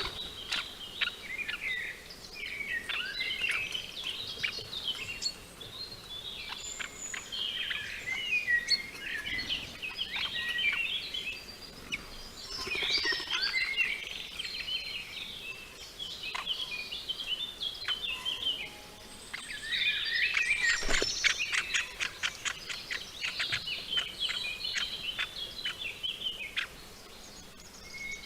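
Birds chirping and calling in a dense, overlapping chatter. About twenty seconds in, a quick run of sharp taps or clicks joins the calls.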